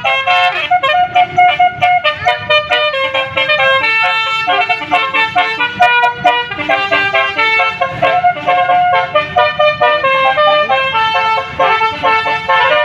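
Bus 'telolet' musical air horn of the basuri type playing a running melody, reedy notes stepping quickly from one to the next, over a low rumble.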